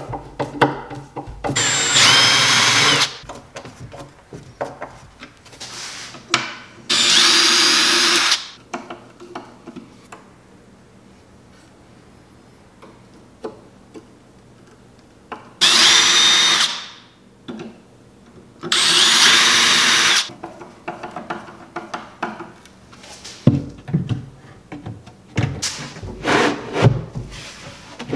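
Cordless drill driving screws to fasten metal full-extension drawer slides to plywood, in four short bursts of about a second each. Near the end come scattered clicks and knocks as a drawer is fitted onto its slides.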